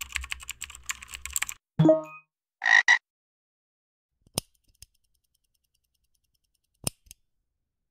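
Intro sound effect: rapid computer-keyboard typing for about a second and a half, then a frog croaking, first a short pitched call and then a louder rasping two-part croak. A few single sharp clicks follow later.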